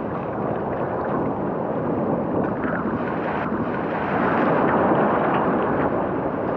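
Ocean surf and churning seawater close around the microphone, a steady rush of noise with a few small splashes.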